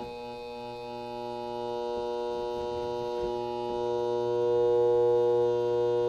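Microwave oven transformer, rewound with a few turns of heavy battery cable as a high-current secondary, humming loudly as it is shorted through a nail and heats it red-hot. The steady mains buzz swells louder about four seconds in.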